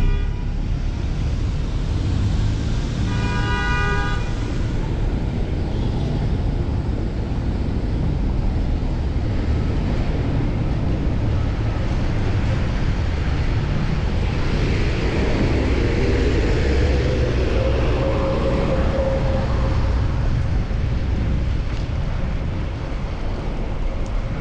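Steady low rumble of wind on a chest-mounted action camera's microphone and city traffic while cycling. A vehicle horn toots briefly about three seconds in, and a passing vehicle's engine rises in pitch and holds a steady tone past the middle.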